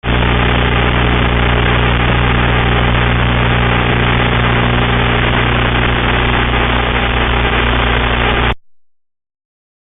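Loud, steady motor hum with a low drone of several even tones, cutting off suddenly about eight and a half seconds in.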